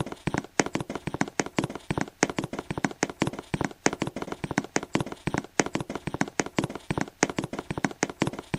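Rapid, uneven clicking or tapping, about five or six sharp clicks a second.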